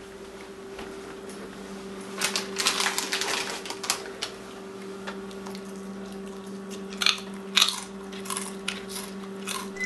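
Crinkling of a snack chip bag being rummaged for about two seconds, then a few crunchy bites of a chip near the end, over a steady low hum.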